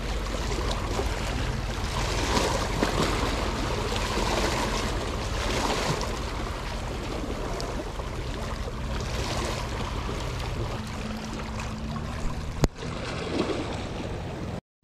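Small sea waves lapping and splashing against shoreline rocks, over a faint steady low hum, with one sharp click near the end.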